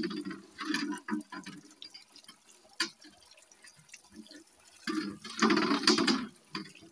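Hand-scrubbing the inside of a metal cooking pot (ganj) in soapy water: wet scouring strokes in two spells, at the start and again about five seconds in, with a quieter stretch between and a single click near three seconds in.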